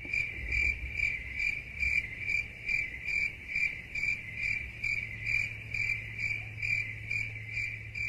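Stock crickets-chirping sound effect: an even run of high chirps a little over two a second, over a faint steady low hum. This is the stock 'crickets' meme clip used for an awkward silence.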